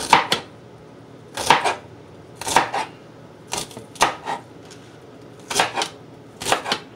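Chef's knife slicing through crisp pak choi stalks onto a plastic cutting board, one sharp cut about every second.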